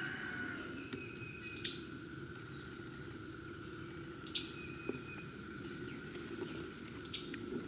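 A bird calling outdoors, repeating the same short call three times about every three seconds: a quick falling note that settles into a brief held note. A faint steady hum runs underneath.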